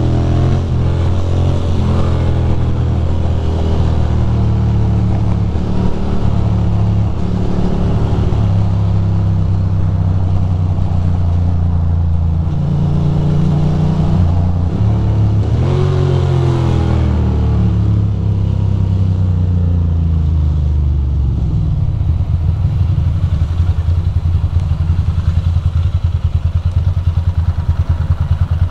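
Ducati Monster motorcycle's V-twin engine riding in traffic, its pitch rising and falling as it accelerates and shifts. About three-quarters of the way through it drops to a pulsing idle as the bike comes to a stop.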